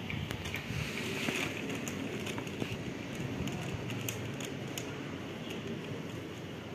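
A thin clear plastic bag crinkling and crackling as cats move inside it and paw at it, with irregular sharp crackles.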